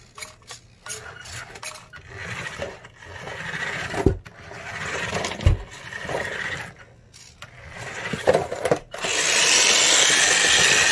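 Converted toy RC car's brushed electric motor and gears running in uneven bursts with rasping, scraping noise and a couple of sharp knocks, then a loud steady rushing noise for the last two seconds. The owner finds the swapped-in motor weak.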